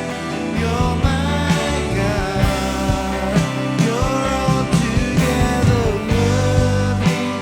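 Worship band music with a steady beat, sustained bass and a melody line that glides in pitch.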